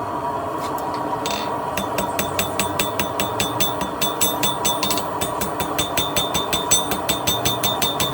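Blacksmith's hammer striking hot steel on an anvil in a fast, even rhythm of about four to five blows a second, each blow with a bright ring, starting about two seconds in over a steady background roar.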